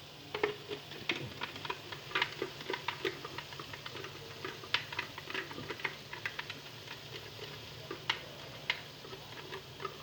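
Irregular clicks and taps of a cooking utensil against a pan or pot while food is stirred, several a second with a few louder knocks, over a low steady hum.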